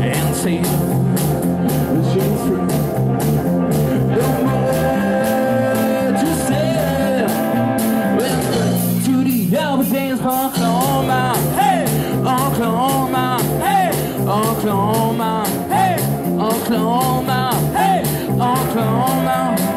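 Live rockabilly band playing an instrumental passage: hollow-body electric guitar over a walking electric bass line and a steady quick drum beat. The guitar plays a lead with bending, sliding notes in the second half.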